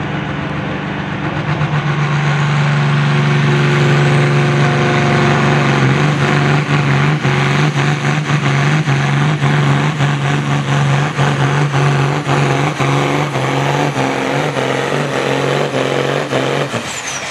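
John Deere 8410 pulling tractor's diesel engine running hard under load as it drags a pulling sled, getting louder in the first few seconds and turning choppy and pulsing through the middle of the pull. Near the end the engine note drops away and a high turbo whine falls off in pitch as the pull ends.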